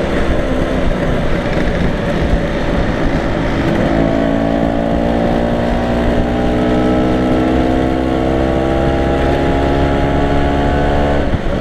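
Vintage Vespa scooter's single-cylinder two-stroke engine heard from on board while riding, with wind noise on the microphone. From about four seconds in, its pitch climbs steadily as it pulls in gear, then drops suddenly near the end.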